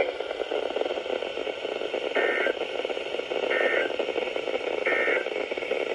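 Weather radio hiss and static with three short bursts of digital data tones about 1.3 s apart: the SAME end-of-message code that closes a NOAA Weather Radio test broadcast.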